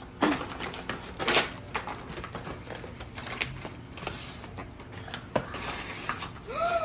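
Scattered clicks and rustling of a toy playset's packaging being handled and opened.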